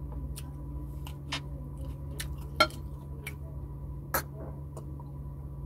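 Close-up eating sounds of a person eating fried tilapia and rice by hand: scattered wet mouth clicks and lip smacks, with two sharper clicks about two and a half and four seconds in, over a steady low hum. Near the end he sips water from a plastic cup.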